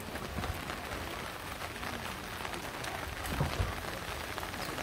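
Steady rain falling, an even hiss, with a couple of low bumps about three and a half seconds in.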